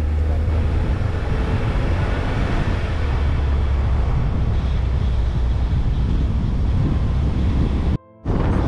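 A car driving along, with a steady low rumble of engine and road noise. About eight seconds in the sound drops out for a moment and gives way to wind buffeting the microphone.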